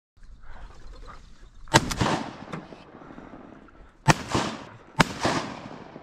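Shotguns fired at flying ducks: a close pair of shots about two seconds in, then single shots about four and five seconds in, each trailing off in an echo.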